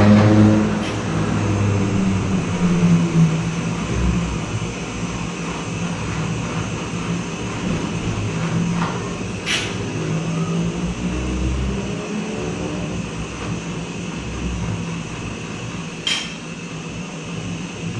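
Jeweler's gas torch running steadily as it heats a gold bracelet for its final reddish finish, with a low hum beneath. Two sharp clicks, about halfway through and near the end.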